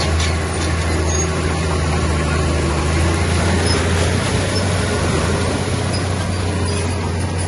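Heavy diesel engine of earthmoving machinery running steadily, with a deep, even drone.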